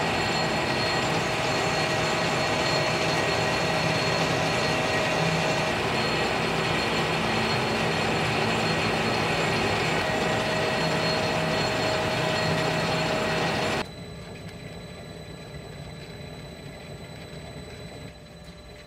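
Metal lathe running under power while machining a steel part, with a steady whine over the rumble of the motor and gears. It cuts off sharply about 14 seconds in, leaving a quieter low hum.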